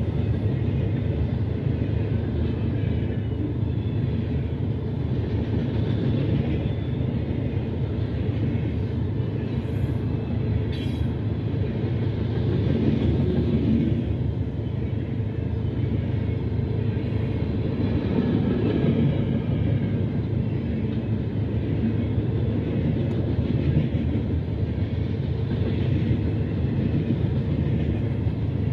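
Freight cars of a passing freight train (boxcars and tank cars) rolling by, their steel wheels giving a steady rumble and rattle on the rails, heard from inside a car.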